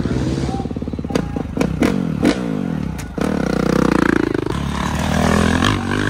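Dirt bike engines revving close by, the revs rising and falling in repeated bursts, loudest for a second or so about three seconds in, with a few sharp clicks.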